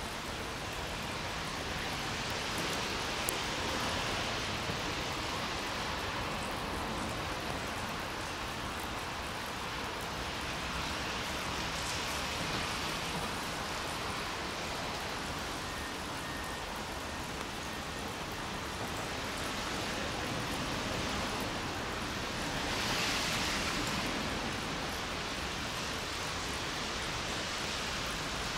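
Steady hiss of light rain in the open air, with a few passing vehicles swelling and fading, the loudest of them late on.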